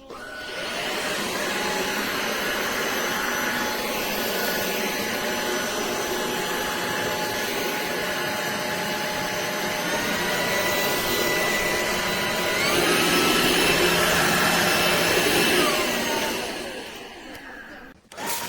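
DIFFULL V20 cordless stick vacuum running with a steady whine over a rushing airflow. The whine steps up in pitch twice partway through and the vacuum gets louder. Near the end it winds down, its pitch falling.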